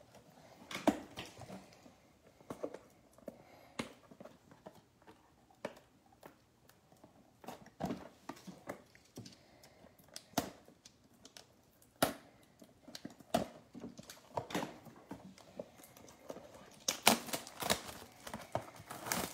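Cardboard trading card blaster box being handled and opened by hand: scattered crinkles, taps and clicks of packaging, busier and louder near the end.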